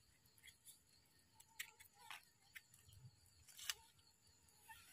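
Near silence, with a few faint clicks and rustles of a gloved hand handling a mushroom among dry leaves.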